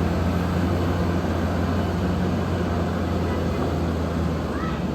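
Large bus diesel engine running close by, a steady low drone with no horn sounding.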